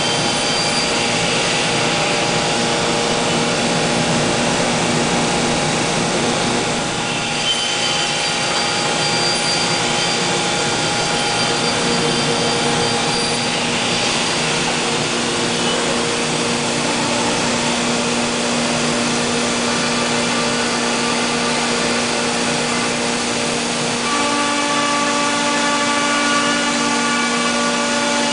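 A CNC wood machining centre cutting a wooden door: a steady, loud rushing noise with a high-speed spindle's whining tones. The pitch of the whine shifts several times as the cut changes, most clearly near the end.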